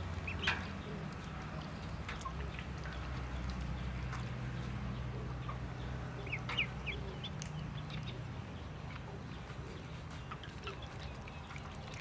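Ducklings peeping: a few short high calls scattered through, with a cluster of them about halfway, over small splashes of dabbling in a basin of water. A steady low hum lies underneath.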